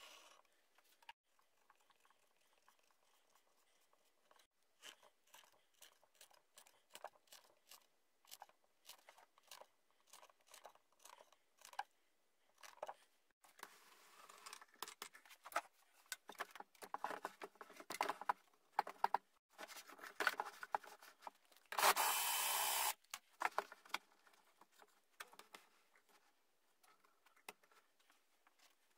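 Scattered clicks, taps and knocks of tools and plywood parts being handled and set up at a workbench, busier in the second half, with a one-second burst of steady noise a little past the middle.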